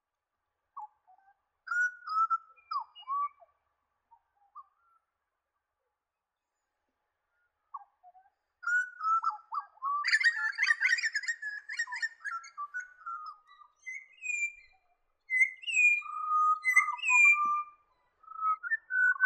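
Grey butcherbird singing: loud, clear piping whistles with short slides up and down in pitch. Scattered notes open it, then a dense run of notes tumbles out about halfway through, followed by more ringing whistles near the end.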